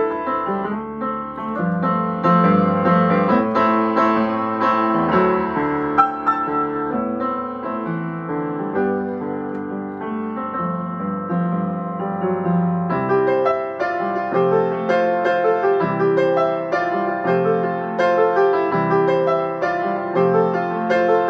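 Solo upright piano playing a flowing piece, turning to more rhythmic repeated chords about halfway through.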